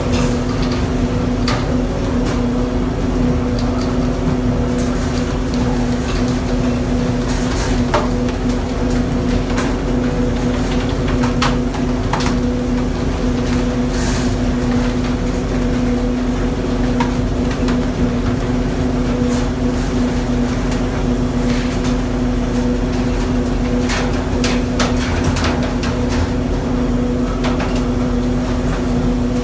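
Fishing vessel's engine and machinery humming steadily, over a constant rush of water along the hull. Scattered sharp knocks and clatters from the fishing on deck.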